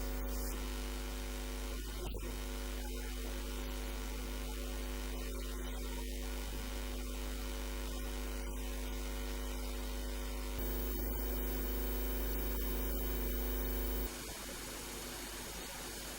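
Steady electrical hum with an even hiss, the level stepping up about ten seconds in and dropping a few seconds later.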